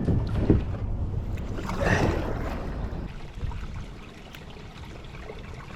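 Kayak paddling: paddle strokes splashing in the water over a low rumble of wind on the microphone, easing off to a quieter wash of water about three seconds in.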